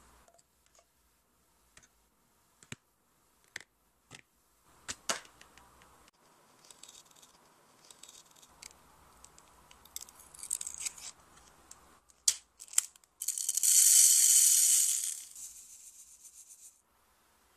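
Diamond painting kit being worked by hand: light taps and paper rustles, then a craft knife scraping along a metal ruler as it cuts. Two sharp clicks follow, then resin drills pour into a plastic tray with a dense rattle about thirteen seconds in. The rattle is the loudest sound and dies away over the next two seconds.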